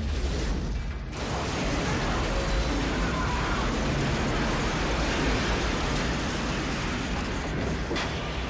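Film sound effects of a large ship collision: a dense, heavy rumble of crashing and grinding metal that swells about a second in, with a sharp crack near the end.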